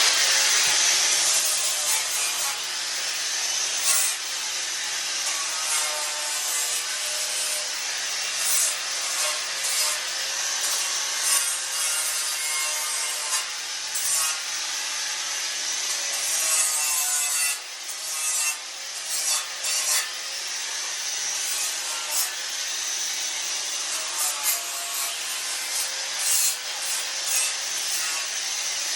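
Electric grinder working the cut edges of a steel tractor frame, grinding continuously, its motor pitch wavering as the load changes, with a few brief let-offs.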